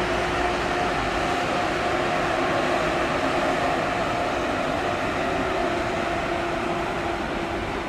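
Train running: a steady rumble with a faint steady hum through it.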